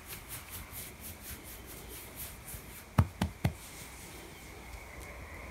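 A hand strokes a dog's fur with light, even rustling, then pats its side: three soft thumps close together about three seconds in.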